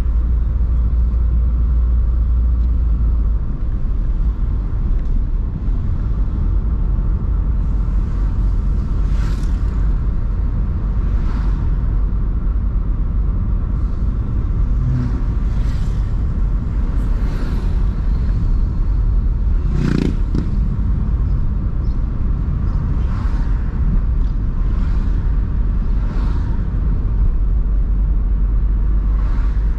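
Car driving on town streets: a steady low road rumble, with brief whooshes several times as traffic goes by, the loudest about two-thirds of the way through.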